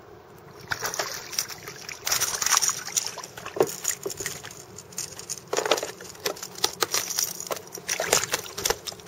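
Water splashing and sloshing against a kayak, with irregular knocks and clicks from handling on board.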